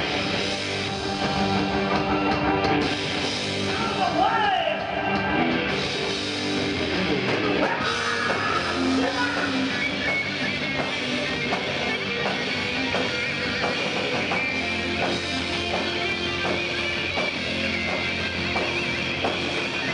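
A glam rock band playing live and loud, with electric guitars to the fore over a steady beat.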